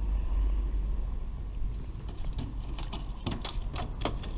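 Wind buffeting the camera microphone with a low rumble, then a run of irregular sharp taps and knocks starting about two seconds in.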